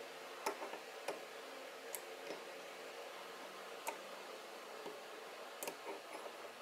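Small blocks of pattern-welded steel being set down and stacked on a steel bar: faint, sharp metal clicks and taps, about half a dozen at irregular intervals.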